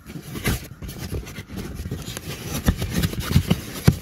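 Plastic trim panel being worked into place in a car footwell by hand: irregular rubbing and scraping against carpet and plastic, with several light knocks, the sharpest near the end.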